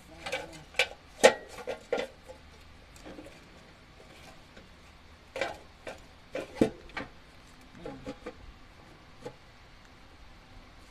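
Scattered clicks, taps and light knocks of hands working among the wires and parts in an engine bay. They come in a cluster in the first two seconds, again about five to seven seconds in, and a few more near eight seconds.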